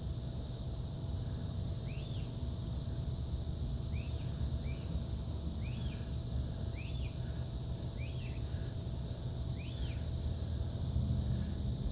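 A bird calling outside, short rising chirps repeated about seven times at irregular gaps, over a steady low rumble.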